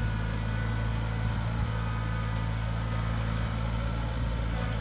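Compact utility tractor's engine running at a steady, low speed as the tractor drives slowly across grass, an even hum with no change in pitch.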